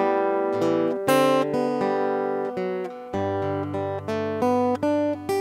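Martin OMC-28E steel-string acoustic guitar fingerpicked, playing a slow closing phrase of single melody notes over ringing bass notes.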